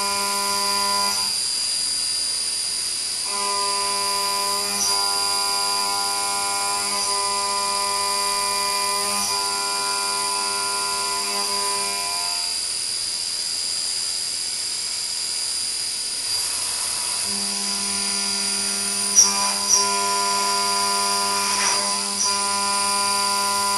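CNC machining centre milling a workpiece: the end mill cutting gives a steady pitched whine that drops out twice as the tool leaves the cut, over a constant high-pitched machine whine, with a few sharp ticks near the end.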